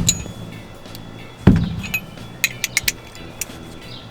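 Loose broken window glass clinking: two heavy knocks, the second about a second and a half in, then a quick run of sharp clinks, all over background music.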